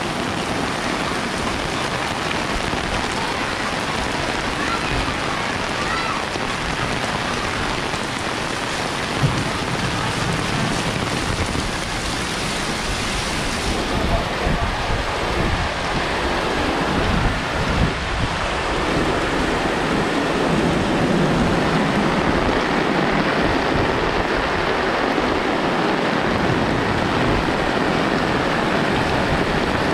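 Heavy rain pouring steadily on the street and nearby surfaces, a dense constant hiss that grows slightly louder about two-thirds of the way through.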